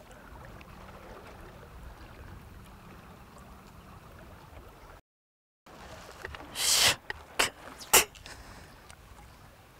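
Low, steady background of a small boat sitting on calm water. After a brief dropout comes a short loud rush of noise, then two sharp knocks about half a second apart, the loudest sounds.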